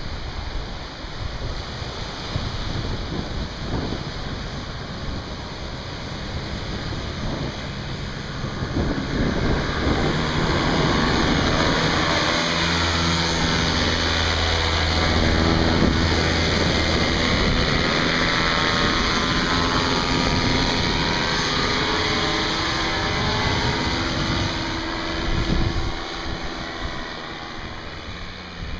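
Wind and surf on the microphone, then a paramotor's engine and propeller grow louder from about eight seconds in, pass close overhead and fade as it flies away.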